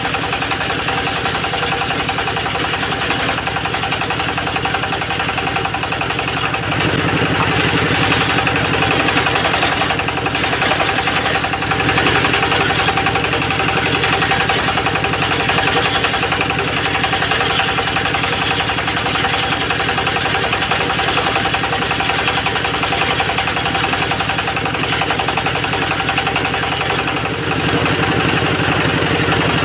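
Engine of a homemade circular sawmill running steadily while it saws teak boards. It gets louder about seven seconds in and eases briefly near the end.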